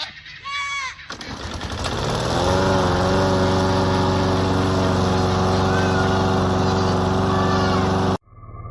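A goat bleats briefly, then a loud, steady engine-like drone builds over about a second and runs on until it cuts off abruptly near the end.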